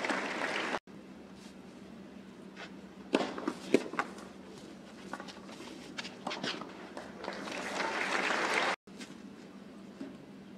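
A few sharp thuds of a tennis ball on a clay court, then crowd applause swelling for a couple of seconds before cutting off suddenly.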